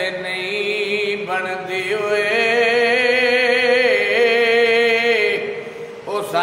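A man's voice chanting unaccompanied in long, drawn-out melodic phrases with a wavering pitch, breaking briefly about a second in and trailing off near the end before starting a new phrase.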